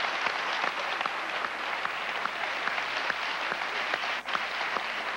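Television studio audience applauding, a steady mass of many hands clapping.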